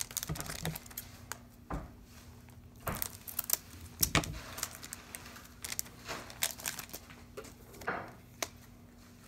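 Pokémon trading cards being handled, with irregular crisp clicks and slides as the cards are flicked through and set down. A faint steady hum runs underneath.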